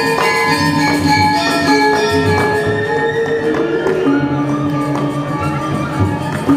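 Balinese gamelan playing the accompaniment for a Rangda dance: struck metal notes ringing and held over a busy run of sharp percussive strikes.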